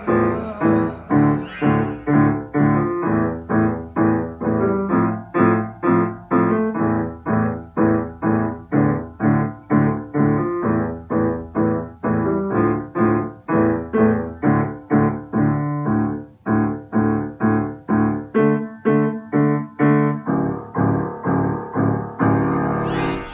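Grand piano playing a steady march in detached chords, about two a second, with a brief break partway through and a final chord held and dying away near the end.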